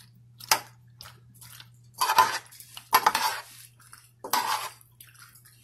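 Spoon stirring ziti pasta and steak pieces in a pan, scraping and clinking against the pan in about five separate strokes, the loudest around two and three seconds in.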